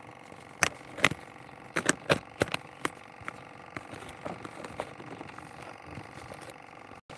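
A run of sharp clicks and knocks, about seven in the first three seconds and fainter ones after, over a faint steady hum.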